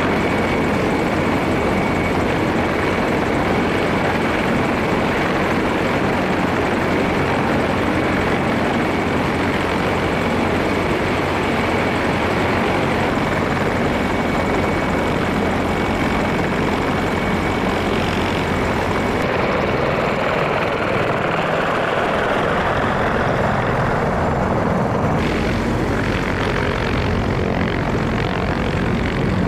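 Heavy transport helicopter running on the ground, a steady loud wash of turbine and rotor noise. A thin high whine rides over it for the first two-thirds, and the sound shifts in character twice in the last third.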